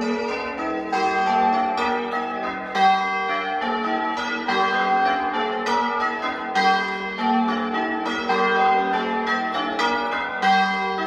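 Change ringing on a ring of six church bells, the tenor weighing 9 cwt 2 qr and sounding G. The bells strike one after another in a steady, unbroken run, each note ringing on into the next.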